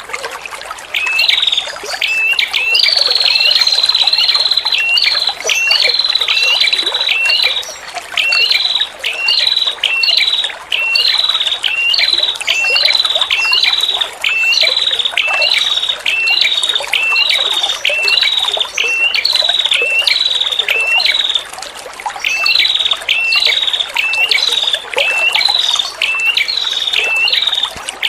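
Female prenjak kepala merah repeating a short, sharp chirp about one and a half times a second in a long run, with two brief breaks. A steady trickle of running water goes on underneath.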